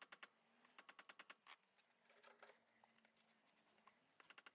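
Faint, rapid clicking, about eight sharp ticks a second in short runs with pauses between, over near silence.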